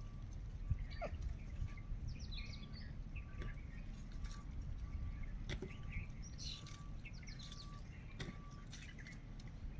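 Wild birds chirping and calling, with one short note repeated steadily about every half second and scattered quick falling chirps. A low rumble runs underneath.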